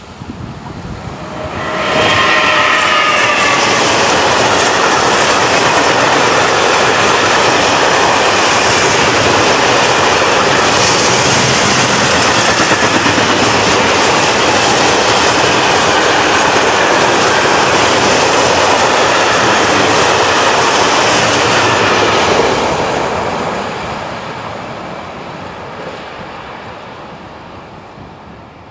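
SNCF BB 36000-class electric locomotive 36012 passing with a long freight train of flat wagons. A falling whine comes as the locomotive goes by, then the loud, steady rumble and clatter of the wagons' wheels on the rails for about twenty seconds. The sound fades gradually as the train moves away.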